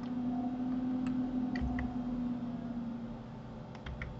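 A few faint clicks from a computer mouse and keyboard, in two small groups, over a low steady hum that fades after about three seconds.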